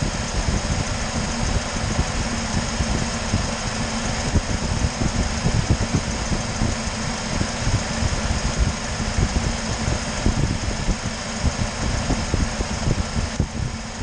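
UAZ Patriot engine idling steadily, warming up toward the temperature at which the electric radiator fan switches on.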